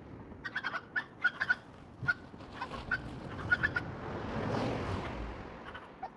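A series of short, sharp clicking sounds in irregular clusters over the first four seconds, then a car passing on the road, swelling and fading from about four to six seconds in.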